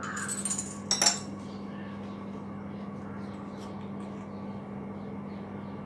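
A steel measuring spoon scraping and clinking against a glass jar while a spoonful of powder is scooped and levelled, with one sharp clink about a second in. A faint steady hum continues underneath.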